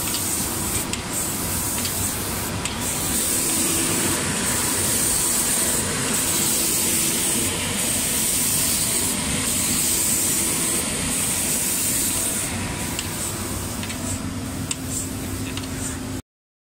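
Automatic spray painting machine running: a steady hiss of compressed-air paint spray over a low machine rumble. The hiss dips briefly every second or two and cuts off suddenly near the end.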